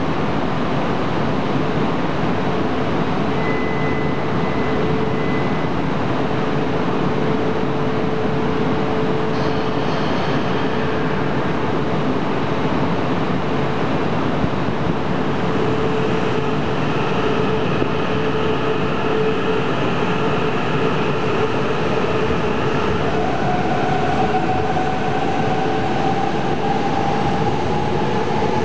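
E4 series double-decker Shinkansen pulling away from a station: a steady, dense running noise with a held hum. From about two-thirds of the way in, a motor whine rises in pitch as the train picks up speed.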